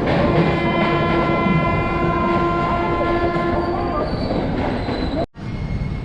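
Rumbling running noise of a moving express train, with a train horn held as one steady blast of about three and a half seconds. The sound cuts out abruptly for a moment near the end.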